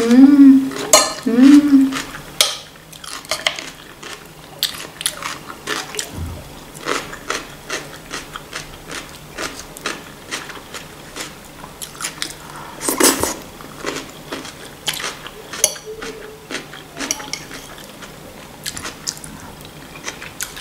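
A person eating fresh cucumber salad: crisp bites and chewing, with a metal fork clinking and scraping on a china plate. Two short hummed voice sounds come in the first couple of seconds.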